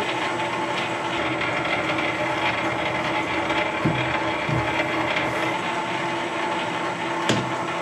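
Boxford lathe running steadily under power, its gearbox and lead screw turning for screw-cutting, with a steady gear whine and a few faint clicks.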